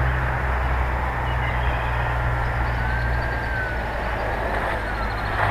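Distant whine of the model float plane's motor, its pitch rising and then falling with the throttle about halfway through, over a steady low rumble.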